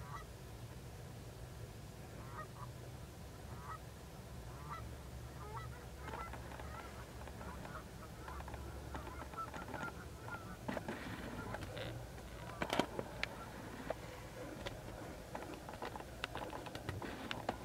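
Canada geese honking, single calls about once a second at first, then quicker and overlapping as the flock runs and takes off. Later comes a run of sharp clicks and knocks, the loudest about 13 seconds in, over a steady low hum.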